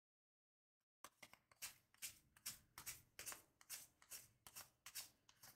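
Upper Deck CHL hockey trading cards being flipped one at a time from one stack onto another in the hands. From about a second in there is a quick, irregular run of quiet card flicks and slaps, several a second.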